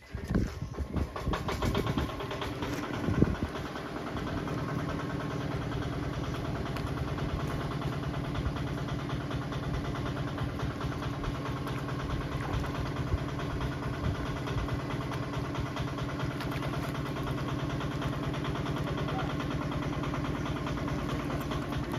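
An engine starting abruptly, running unevenly for the first few seconds, then settling into a steady idle.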